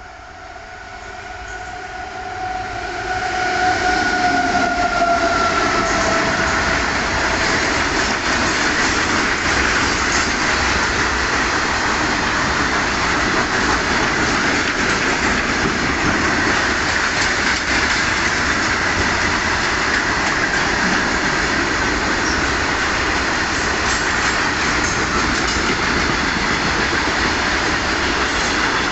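Indian Railways train approaching and passing close by: its horn sounds a held tone whose pitch drops as the train passes, about five seconds in. The loud, steady rumble and clickety-clack of the carriages then fills the rest.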